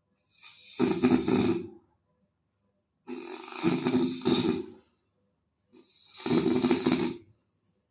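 Loud snoring: three long snores, each about a second and a half, coming about every two and a half to three seconds, with silence between them.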